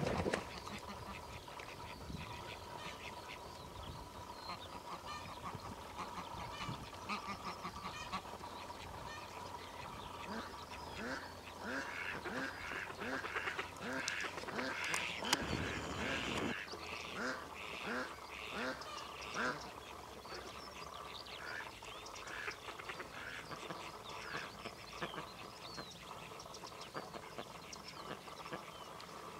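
Greylag geese calling: a run of short, repeated calls, about two a second, for some ten seconds around the middle. A brief loud rush of noise comes about halfway through the calls.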